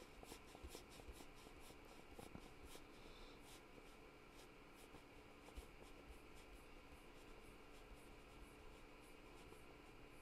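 Near silence with faint, light scratching and rubbing of hands and painting materials on watercolor paper: many small ticks in the first few seconds, sparser after.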